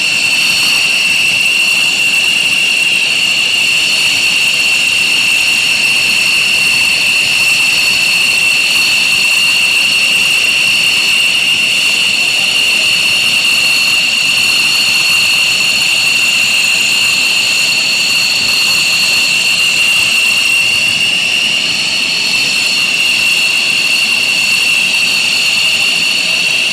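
Fighter jet's turbofan engine running steadily, a loud high-pitched whine that holds the same pitch throughout.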